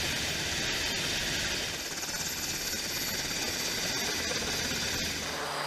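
Aircraft engines running on a carrier flight deck, a steady, even rushing noise with no distinct events.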